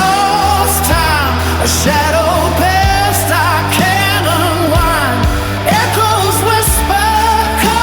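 Song with a sung melody over a rock-style band backing and a steady bass.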